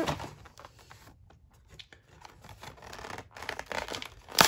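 Plastic blister pack and card backing of a toy-car package being handled and pried open: scattered scratching and rustling of plastic, busier toward the end, then a sharp loud crackle of plastic near the end.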